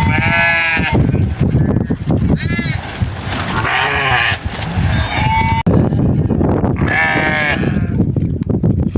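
A flock of sheep bleating, with about five separate wavering calls from different animals over the steady low shuffle and noise of the flock.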